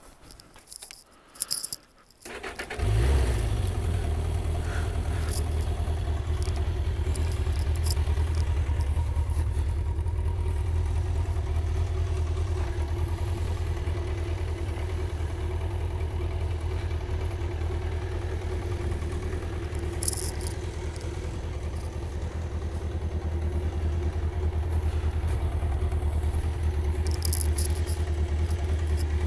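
A few clicks of the ignition key, then the 1996 Yamaha XJ900S Diversion's air-cooled inline-four starts about two and a half seconds in and settles into a steady idle.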